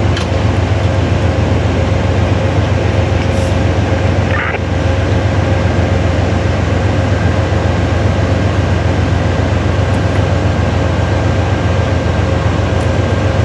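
Steady low hum of a standing Amtrak passenger train, its equipment running while it waits, with faint steady tones above the drone.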